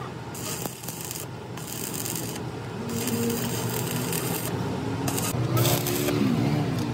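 Stick (arc) welder crackling and sizzling as a weld is laid around the bore of a Cat motor grader's centre-pin housing, in runs of about a second that break off and restart several times.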